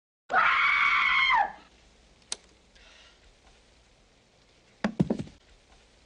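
A scream lasting about a second, its pitch dropping at the end. A sharp click follows, then a quick run of about four knocks near the end.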